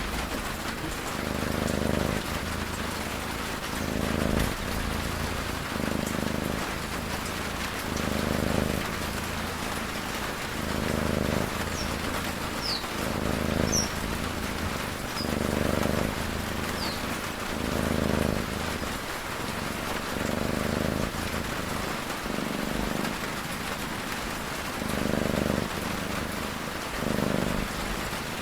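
Steady rain with a cat snoring over it, one low snore about every two seconds.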